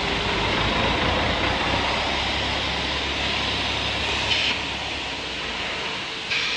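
A concrete kerb-stone block-making machine runs with a steady mechanical din and a low hum. The hum drops away near the end. Two short, sharp sounds rise above it, one about four seconds in and one at the very end.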